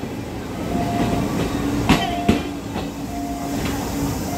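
Passenger coaches of a steam-hauled train rolling past, wheels clacking over rail joints, with a sharp double clack about two seconds in.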